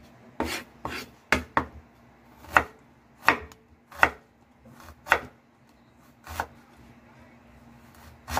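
Kitchen knife slicing peeled ginger on a wooden cutting board: about ten sharp knocks of the blade striking the board at an uneven pace, dying away after about six seconds.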